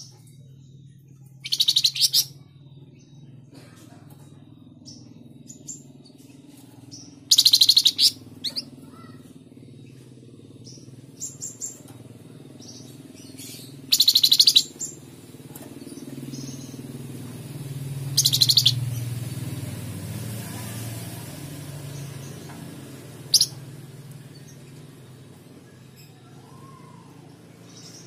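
Caged flamboyan songbird singing short, rapid trilled phrases about every five seconds, five in all, with a few single high chirps between them. A steady low hum runs underneath and grows louder in the middle.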